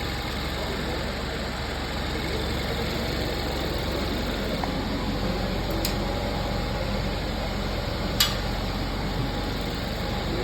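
2015 Kia Soul engine idling steadily after its bad connecting rod bearing was replaced, running smoothly without knocking. There is a short click about six seconds in and a louder one about eight seconds in.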